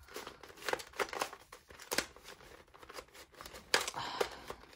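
Penguin-shaped plastic 2x2 puzzle cube being turned fast during a speed solve: a rapid, irregular run of plastic clicks and clacks as its layers snap round.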